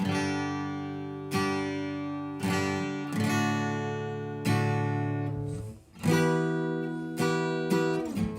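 Acoustic guitar strumming chords one stroke at a time, about a stroke every second or so, each chord left to ring out, moving through several chord shapes.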